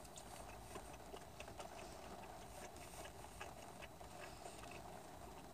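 Faint eating sounds while chewing chicken nuggets: scattered small clicks and smacks over a quiet room hiss.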